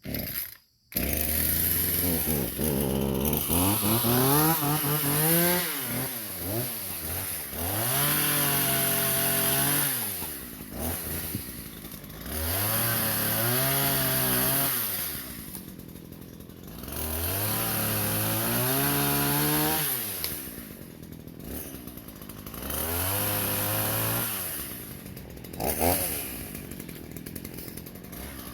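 Ryobi 16-inch two-stroke gas chainsaw revved to full throttle about five times, each burst held two to three seconds and dropping back to idle in between, as it cuts small wood.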